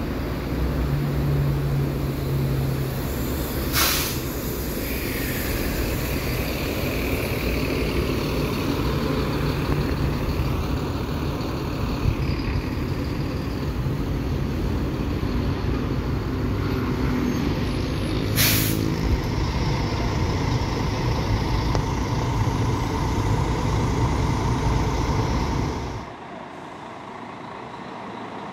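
City bus diesel engines running close by, with two short air-brake hisses, one a few seconds in and another about two-thirds of the way through. The engine noise drops off abruptly near the end.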